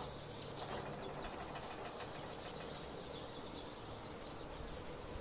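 Faint birds chirping over a low, steady background hiss.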